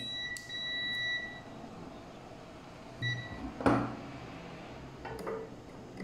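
Digital multimeter's continuity beeper: one high, steady beep about a second long, then a short second beep about three seconds in. A sharp knock of the probes or hands follows.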